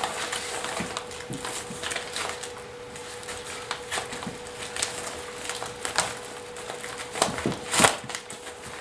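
Clear plastic bag crinkling and rustling as packets of firecrackers are handled and pulled out of it, a run of irregular crackles and clicks that grows loudest near the end.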